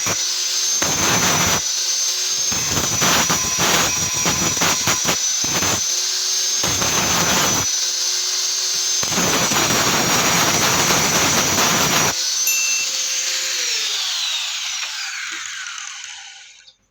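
Angle grinder running with a high whine, its disc biting into steel in repeated loud grinding spells. About twelve seconds in it is switched off and spins down, its pitch falling until it stops near the end.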